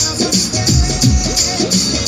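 Music with a steady, heavy beat and strong bass.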